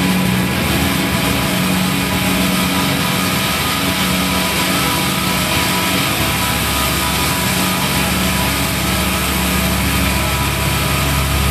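Dark electronic drone from a projection-mapping show's soundtrack: a dense hiss with steady held tones, machine-like in texture. A deep low rumble swells in about eight seconds in.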